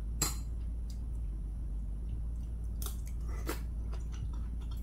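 A person chewing a mouthful of soy-sauce-pickled bangpung namul (coastal glehnia greens), with a few sharp clicks scattered through it.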